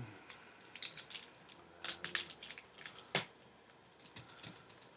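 Small screwdriver scraping and clicking against a laptop LCD panel as the tape holding the display cable connector is pried off: irregular light clicks and scratches, with two sharper clicks about two and three seconds in.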